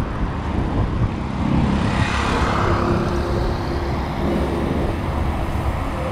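Road traffic noise with a heavy low wind rumble on the microphone. It swells for a moment about two seconds in, and a faint steady hum comes in near the middle.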